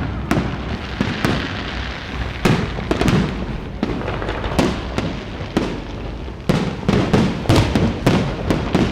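Fireworks display: an irregular string of sharp bangs and crackles, several close together at times, over a steady low rumble of booms.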